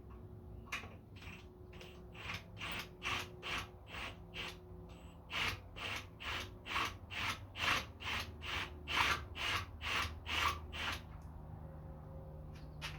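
A tap being driven into the threaded end of a Honda GX270 crankshaft with a drill, giving a regular run of ratcheting clicks a little under three a second that stops about two seconds before the end.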